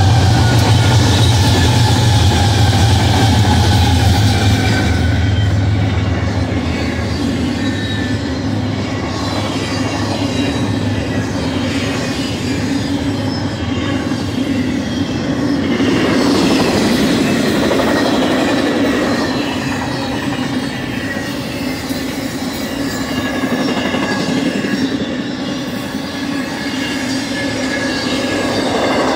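BNSF GE ES44-series diesel locomotives running past at speed, their low engine drone falling away about five seconds in. Then a steady rumble and clatter of intermodal freight cars' wheels on the rails, with faint high-pitched wheel squeal.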